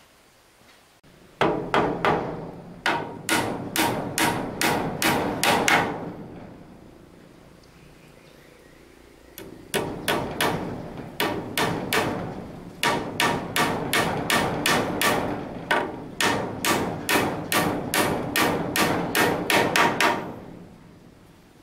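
Hammer driving nails into wooden boards: two runs of steady, evenly spaced blows at a little over two a second, with a pause of a few seconds between them and the second run longer.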